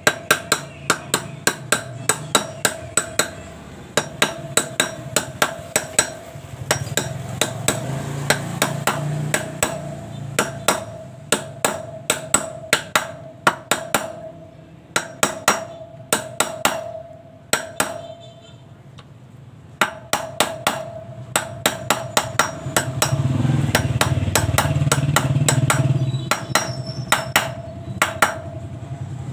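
Claw hammer gently tapping a ball bearing into the steel hub of a tricycle sidecar's spoked wheel: a steady run of light metallic taps, about two to three a second, each leaving a ringing tone, with a short pause about two-thirds through.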